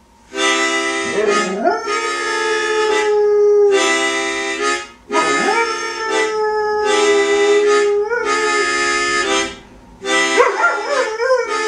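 A dog howling along to music: three long howls, each sliding up in pitch and then holding, about a second in, near the middle and near the end. Under it, an instrument plays sustained chords in phrases with short breaks between them.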